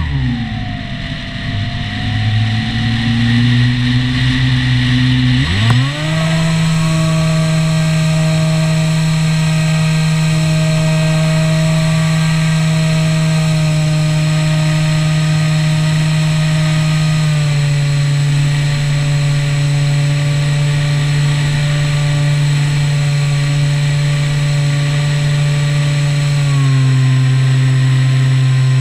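Skywalker 1900mm model plane's electric motor and propeller running. It drones low at first, jumps up sharply in pitch about six seconds in to a steady high drone, then steps down a little twice later on as the throttle eases.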